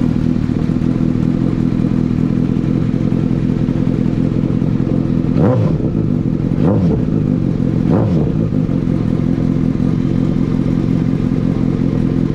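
Honda CBR1000RR's inline-four engine idling steadily, then blipped briefly three times around the middle, each rev rising and falling back to idle.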